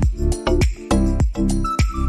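Background music with a steady beat and a bright, jingly top.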